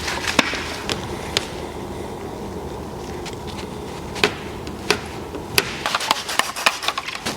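Scattered sharp clicks and taps from hands and tools working paint protection film onto a car panel, a few at first and then a quick cluster near the end, over a steady low hiss.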